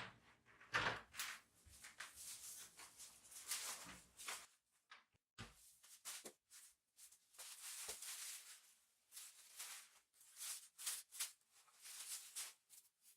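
Faint, irregular rustling with a few light clicks and knocks: things being handled by hand.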